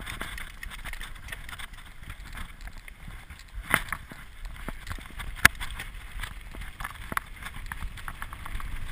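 Mountain bike riding fast down a dirt forest trail: a steady rumble of tyres and rushing air with the bike rattling and clicking over the rough ground, and sharp knocks from bumps, the loudest about five and a half seconds in and another just before four seconds.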